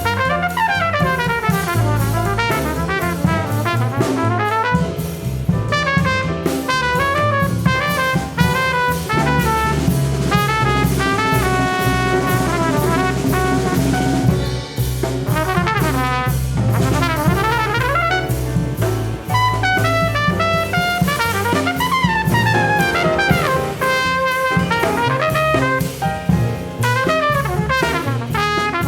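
A jazz quartet playing live: trumpet, piano, upright bass and drum kit, with quick runs of notes over a steady bass line and cymbals.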